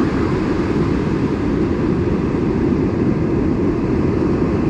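Steady rumble of wind and surf on an ocean beach, a low, even roar with no breaks.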